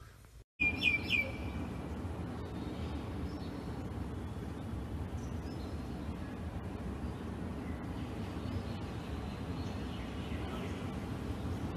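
Two short high chirps about a second in, then a steady low background rumble with faint high sounds over it.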